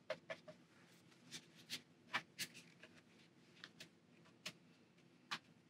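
Faint, irregular soft taps and scratches of a watercolor brush dabbing paint onto paper, about a dozen short ticks scattered unevenly.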